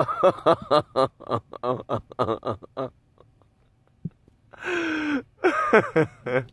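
A person giggling in quick short bursts for about three seconds. After a pause come two short voiced sounds near the end.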